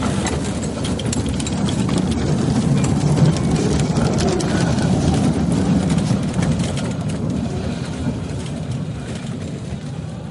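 Horse-drawn narrow-gauge railcar rolling past on its track: a steady rumble and rattle of its wheels on the rails. It grows louder over the first few seconds as the car passes close, then fades as it moves away.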